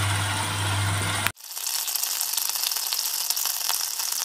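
Corned beef sizzling and crackling in a saucepan as it is stirred with a wooden spoon: a fine hiss dense with small ticks. A low hum sits under the first second, and the sound breaks off sharply and resumes about a second in.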